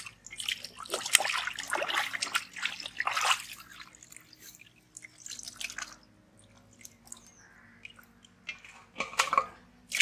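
Water splashing and dripping as whole plucked chickens are dunked in and lifted out of a steel pot of water. The splashing comes in bursts through the first three seconds or so, again around six seconds and briefly near the end, with quieter drips between.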